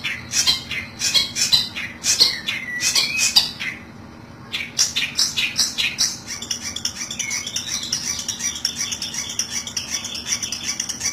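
Long-tailed shrike (cendet) lure call: rapid, harsh, chattering squawks, the scolding call used to draw shrikes in for trapping. The calls break off briefly about four seconds in, then resume over a steady high whine.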